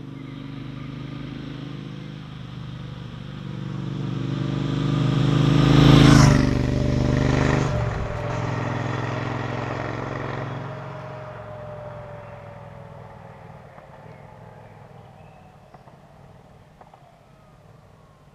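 2017 Triumph Street Cup 900's parallel-twin engine on its original exhaust in a drive-by: it grows louder as the bike approaches, passes about six seconds in with a burst of loud tyre noise, then drops in pitch and fades away.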